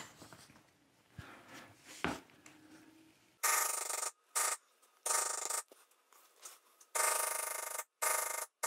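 Lightweight poly maul tapping a steep-edge beveler into tooling leather, in short bursts with pauses between them, starting about three and a half seconds in. The beveler is being walked along the carved lines to deepen and crisp the bevelled edges.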